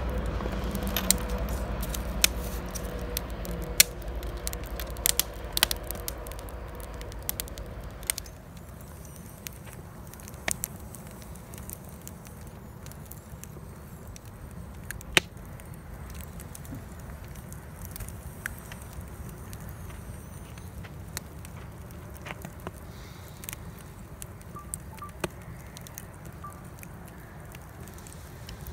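Wood campfire burning in a metal fire ring, crackling steadily with scattered sharp pops from the logs. A low background sound drops away about eight seconds in, leaving the crackle quieter, with a few louder single pops later on.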